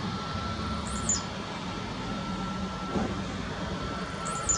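Boeing 737-8 MAX's CFM LEAP-1B jet engines running at taxi idle: a steady rumble with a thin, steady high whine. A bird gives two short, high chirps, about a second in and near the end.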